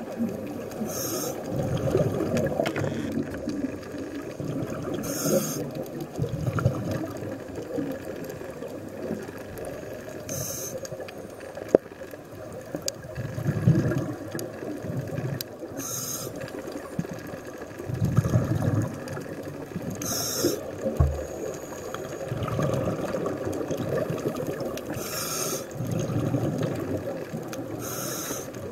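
Scuba diver breathing through a regulator underwater. A short hiss of inhalation through the demand valve comes about every five seconds, each followed by the low bubbling rumble of exhaled air.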